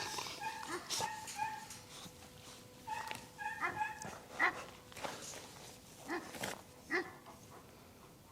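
Kangal puppies whining and yipping: short high cries in clusters, with a few sharper yelps in the second half.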